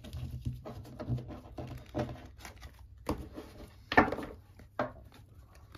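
Tarot cards being gathered and handled on a wooden table: a run of light clicks and taps, with sharper knocks on the tabletop about three, four and five seconds in, the one at four seconds the loudest.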